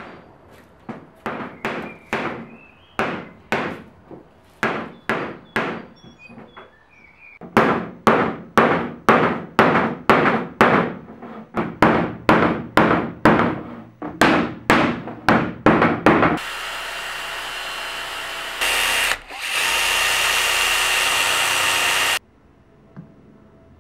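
A hammer striking wood over and over, about two blows a second, lighter at first and heavier from about a third of the way in. Then a power tool runs steadily for about six seconds, with a short break partway, and cuts off suddenly.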